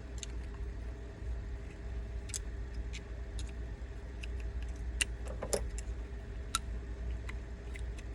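Small metal and plastic parts of an airsoft rifle's magazine catch and mechanism block clicking and scraping as they are handled and pushed into place: scattered light clicks, some louder around the middle, over a steady low hum.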